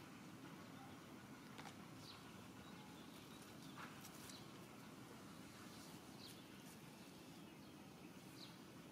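Near silence: faint outdoor ambience with a short high chirp about every two seconds and a few soft clicks.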